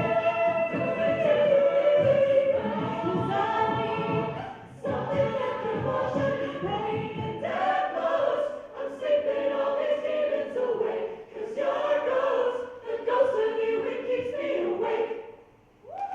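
A cappella vocal group singing in close harmony without instruments, phrase by phrase with short breaks, through the closing lines of a song. The voices stop near the end and applause breaks out.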